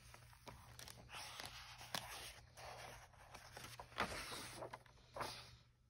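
Faint rustling and a few soft taps as the pages of a hardcover picture book are turned past the endpapers.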